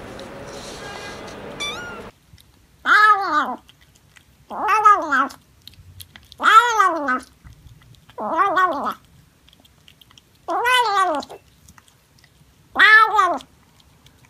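Siamese cat meowing six times, about every two seconds. Each meow is long and loud and rises then falls in pitch.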